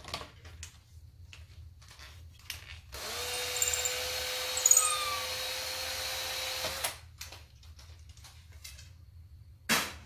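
Power drill spinning up and running steadily for about four seconds before it stops, used to work the core out of heavy cell-tower coax chucked in it. Light clicks and handling knocks before and after, with a sharp knock near the end.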